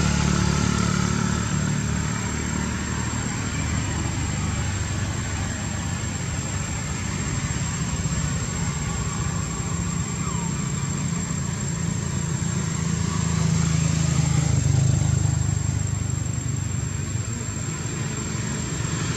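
Steady low hum of an idling engine, a little louder about three quarters of the way through.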